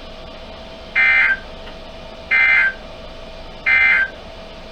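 Emergency Alert System end-of-message tones: three short warbling bursts of SAME digital data, each under half a second and evenly spaced, marking the end of the broadcast warning.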